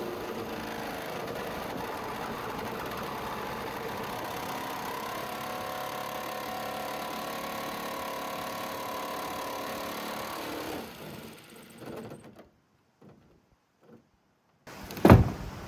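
Corded jigsaw cutting through a van's sheet-steel sliding-door panel, running steadily and then stopping about eleven seconds in. A sharp loud knock comes near the end.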